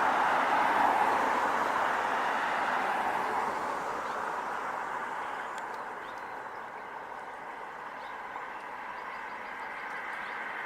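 Road noise of a passing vehicle, loudest at the start and fading away over about six seconds, then slowly building again near the end as more traffic approaches.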